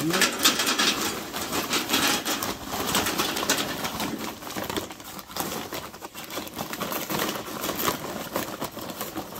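Charcoal briquettes pouring from a paper bag into a metal chimney starter: a dense rattling clatter of briquettes hitting the steel and each other, heavier in the first few seconds and thinning out toward the end.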